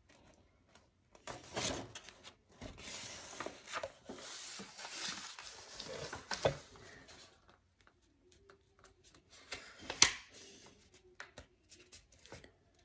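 A sheet of paper being handled and folded, rustling and crinkling in uneven bursts as the creases are pressed down, with one sharp click about ten seconds in.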